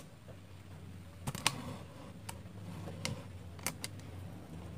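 Scattered light clicks and taps, about seven, the loudest about a second and a half in, as multimeter test probes are set onto solder points on a TV circuit board. A faint steady low hum runs underneath.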